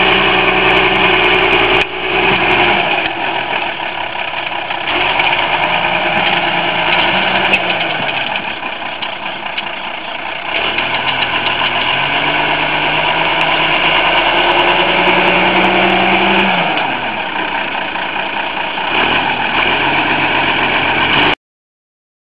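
Fiatagri 160-90 DT tractor's six-cylinder diesel engine working while ploughing, its revs dropping and rising several times as the plough is worked and lifted at the headland. The sound cuts off suddenly near the end.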